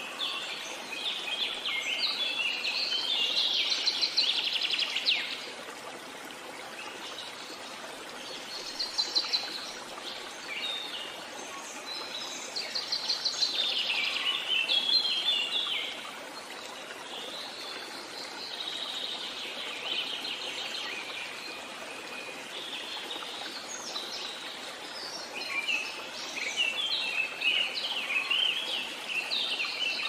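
Several birds singing in quick, trilled phrases that come in bursts every few seconds, over the steady flow of a small waterfall.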